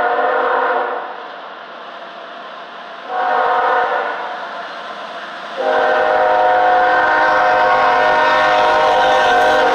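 CSX GE freight locomotive's air horn sounding a chord of several notes for a grade crossing: a long blast ends about a second in, a short blast follows near three seconds, then a long blast starts just before six seconds and holds. This is the end of the standard long-long-short-long crossing warning, and the locomotive's rumble comes in under the last blast.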